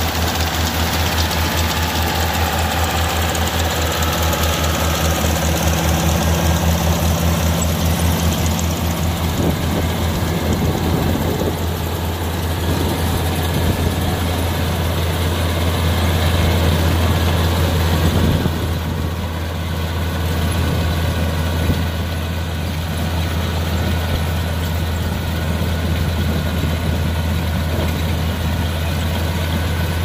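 Kubota R1-551 rice combine harvester running steadily under load as it cuts and threshes rice: a continuous low engine drone with a fast, even chug.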